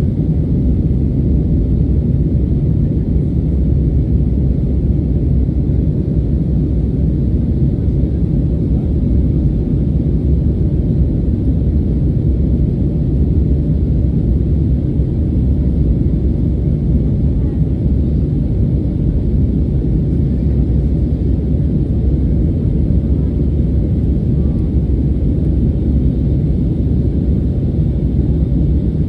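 Airbus A320neo engines and airflow heard from inside the passenger cabin in flight: a steady low rumble with no change in level or pitch.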